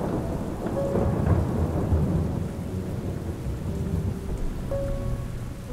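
Rain falling with a long, low rumble of thunder that swells about a second in and slowly fades. Faint sustained music notes sit underneath.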